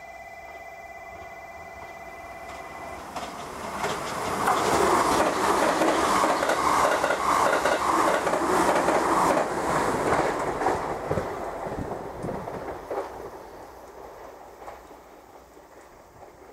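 A JR Kyushu 787 series limited-express train passes through the station at speed: a rushing, clattering pass with the wheels beating over the rail joints, loudest in the middle, then fading away. A steady two-pitch electronic tone sounds at first and cuts off about three seconds in.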